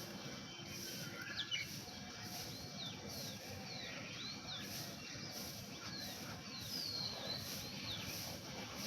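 Birds chirping: many short, quick chirps, some overlapping, over a low background rumble.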